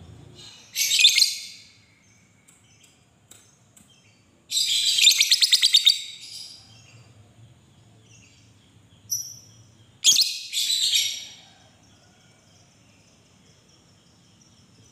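Lovebird giving loud, shrill chattering calls in several bouts: a short burst about a second in, a long, rapidly pulsing rattling trill of the kind lovebird keepers call ngekek around the middle, and two more bursts about two-thirds of the way through.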